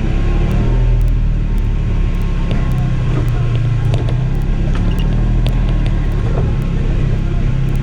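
2011 Polaris RZR 900 XP side-by-side's twin-cylinder engine running steadily while under way, with scattered sharp clicks and knocks over it.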